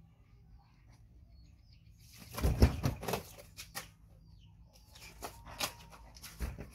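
Young monkey scampering on a quilted floor mat: a loud burst of rustling and knocks about two and a half seconds in, then lighter pattering and taps near the end.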